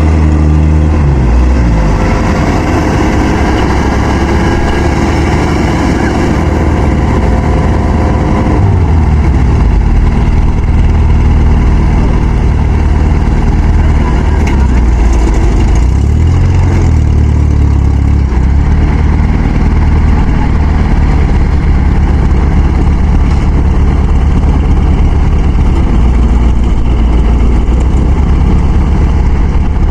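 Heavy farm machine engines of a tractor and a Kubota rice harvester bogged in mud, running hard while towing. The engine note is loud and steady, with its speed dropping about a second in, changing near the eighth second, and dipping then rising again around the middle.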